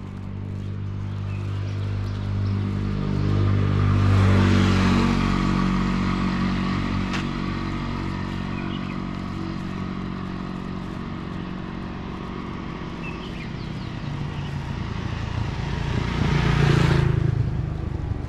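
Motor vehicles passing on the road, engine hum swelling and fading: one goes by about four seconds in and another near the end.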